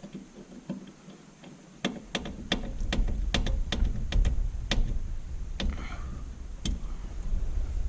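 Small metal hardware being handled and sorted, giving irregular sharp clicks, about a dozen of them. A low handling rumble starts about two seconds in.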